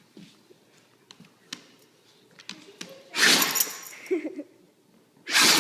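A dog sneezing twice, each a sudden sharp blast of breath: the first about three seconds in, the second near the end. Faint clicks come before them.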